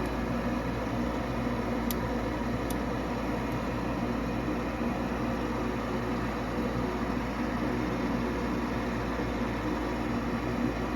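Nordyne gas furnace's draft inducer motor running with a steady hum at the start of the furnace's ignition sequence. There are two faint ticks about two seconds in.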